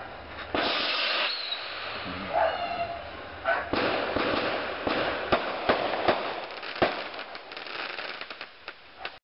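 Fireworks going off: a string of sharp bangs over continuous crackling from bursting shells, the loudest bang near the end. The sound cuts off suddenly at the end.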